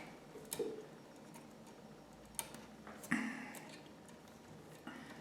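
A few faint, scattered clicks and brief scrapes as stripped electrical wires are lined up and twisted together by hand.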